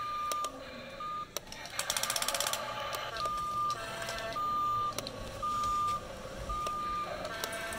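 Remote-control toy excavator's electronic warning beep, a single high tone repeating about once a second, with a quick run of rapid beeps about two seconds in.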